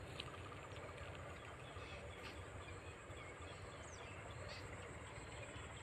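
Faint outdoor background noise with a few faint, short, high chirps.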